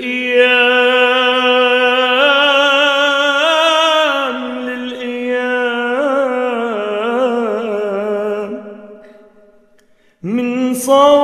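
A man singing a mawwal, an Arabic vocal improvisation, stretching one word into a long, ornamented note with wavering turns of pitch. The note fades away about nine seconds in, and the singing starts again about a second later.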